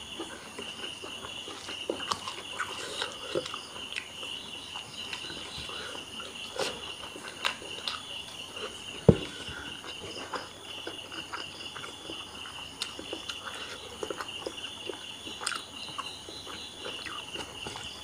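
Crickets chirping steadily and high, over the scattered clicks and taps of rice being eaten by hand from a plate, with one sharp knock about nine seconds in.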